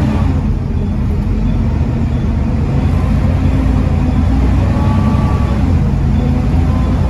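Volvo D7C 7.3-litre diesel engine of a Volvo B7TL double-decker bus running under load, a steady low rumble with faint whining tones above it. The sound drops back briefly about half a second in.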